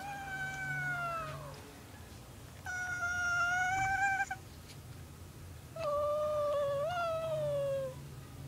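Sleeping cat meowing in its sleep: three long, drawn-out meows with short pauses between them, the last one jumping up in pitch partway through and then falling away.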